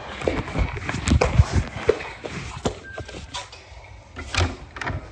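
A string of knocks and rubbing as a handheld phone is carried, then a loud knock about four and a half seconds in as a hand pushes a wooden panel door.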